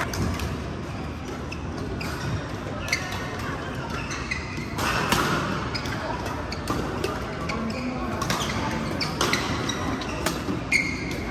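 Badminton rally: rackets striking the shuttlecock about once a second, with players' shoes squeaking briefly on the court mat a few times.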